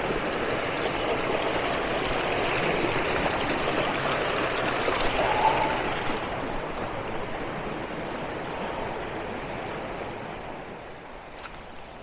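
Rocky moorland stream flowing over stones: a steady rushing hiss of water that fades gradually over the second half.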